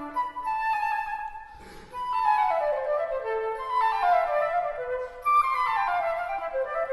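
Instrumental background music of quick, repeated descending runs of notes, with a brief lull about a second and a half in.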